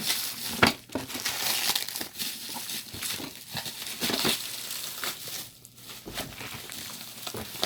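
Tight delivery packaging crinkling and crackling as a boxed keyboard is worked out of it, with many sharp crackles, one louder under a second in, and a brief lull a little past halfway.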